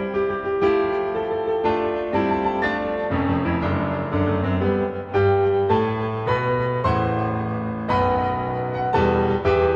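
Background piano music: a steady run of sustained piano notes and chords.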